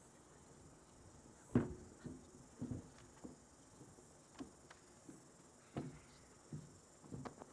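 Faint, irregular thumps and knocks of footsteps on a hollow stage platform as people walk across it, the loudest about a second and a half in, over a quiet outdoor background.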